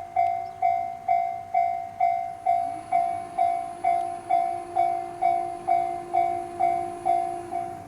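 Japanese level crossing's electronic warning bell ringing in an even beat, a little over two dings a second, while a diesel railcar runs past. The train adds a steady hum that comes in about two and a half seconds in and stops just before the end.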